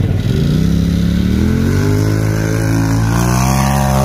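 Rock bouncer built on a Polaris RZR, its engine revving up as it accelerates into a steep dirt hill climb. The pitch rises over the first second, then holds high and steady.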